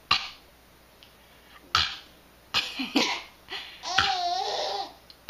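A few short, sharp cough sounds, then a longer wavering laugh about four seconds in, as in a back-and-forth coughing game.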